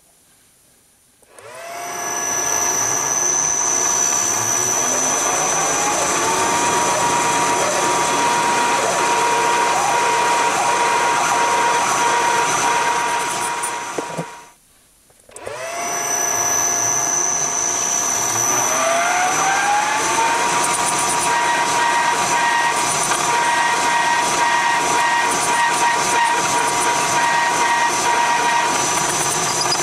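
Metal lathe starting up and running while a twist drill bores into a spinning metal workpiece. A steady whine rises in pitch a few seconds after the start. About halfway through the sound drops away to near silence, then the lathe starts again and the whine rises the same way.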